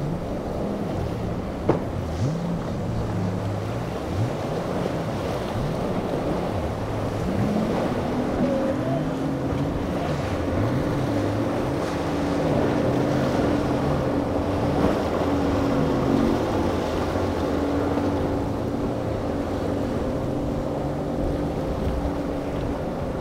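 Single Yamaha outboard on a center-console boat running through choppy inlet waves, its engine pitch rising and falling over and over as the boat meets the swells. Steady wind and surf noise lie underneath, with one sharp knock about two seconds in.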